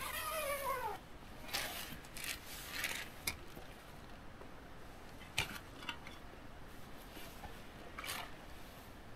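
Camp gear being handled: rustling fabric and a few sharp clicks as a folding camp chair is lifted and set down. This follows a short whining call that rises and then falls in pitch at the very start.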